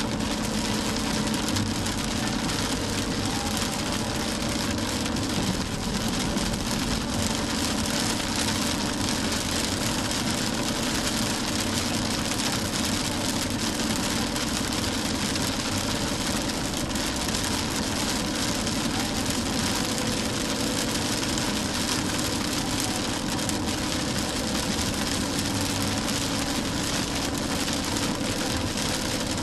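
A car driving in heavy rain: a steady hiss of rain and tyres on the wet road over a low, even engine hum.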